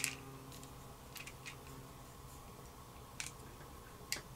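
A few faint, separate clicks of small differential parts being handled and fitted, with quiet gaps between them.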